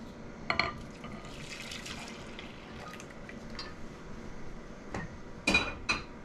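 Scalded milk poured from a copper saucepan into a bowl, a soft liquid splashing. Near the end come two sharp knocks, the loudest sounds.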